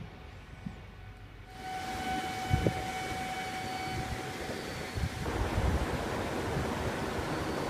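A train passing over a level crossing: a rumble that swells in about a second and a half in, with a steady whine for about three seconds and a few low thumps from the wheels.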